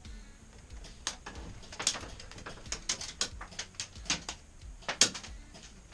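Airsoft BBs striking the plywood walls of a wooden fort: a rapid, irregular run of sharp knocks starting about a second in, the loudest one a little before the end.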